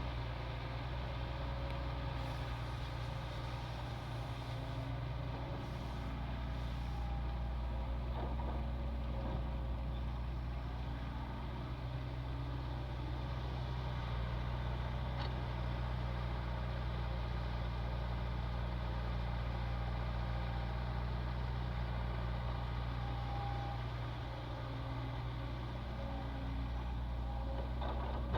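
Heavy diesel earthmoving machinery running steadily: a deep, even engine hum.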